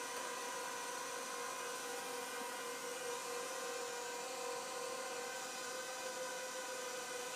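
Zerotech Dobby pocket drone's four small motors and propellers giving a steady high whine while it holds a hover.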